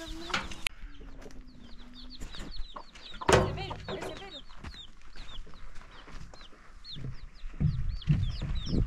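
Farmyard chickens clucking, with many short high chirps running through and a louder call about three seconds in. Low thuds near the end.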